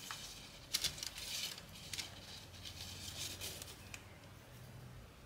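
Faint rustling and a few light taps of hands handling and shifting a pair of Nike Vaporfly running shoes, over a low steady hum.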